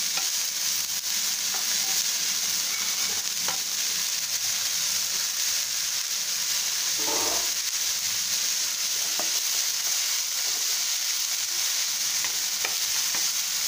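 Chopped onions, green chilli, curry leaves and coriander sizzling steadily in hot oil in a nonstick pan while being sautéed, with a wooden spatula scraping and tapping the pan now and then.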